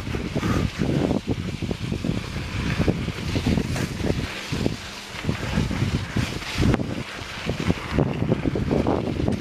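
Wind buffeting the microphone of a camera on a moving mountain bike, with irregular knocks and rattles as the bike rolls over a rough dirt and rock trail.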